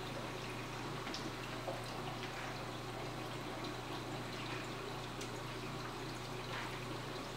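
Reef aquarium's water circulation running: a steady trickling, splashing water noise over a low pump hum, with a few faint drips.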